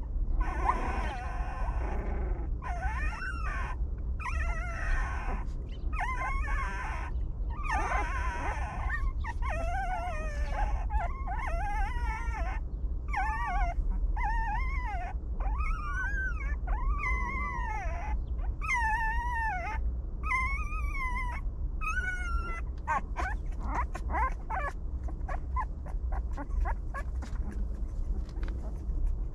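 Young puppies whining: a run of short, high cries that rise and fall, about one a second, trailing off after about 23 seconds, over a steady low rumble.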